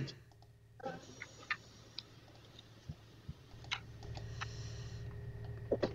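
Scattered faint clicks and ticks over a low steady hum that grows slightly louder near the end.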